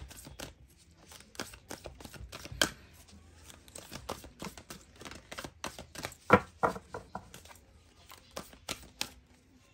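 A deck of tarot cards being shuffled by hand: a quick, irregular run of card clicks and slaps, the loudest about six seconds in.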